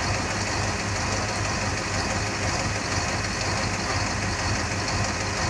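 Heavy diesel engine running steadily at idle, a constant low hum with no change in pitch or level.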